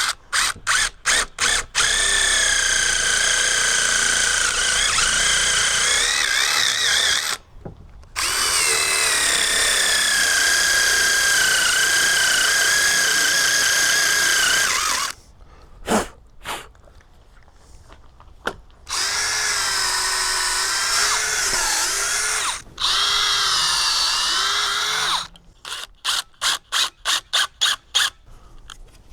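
Handheld power drill running in several long runs of a few seconds each, its whine sagging and wavering in pitch as it takes load, with quick on-off trigger blips at the start and again near the end.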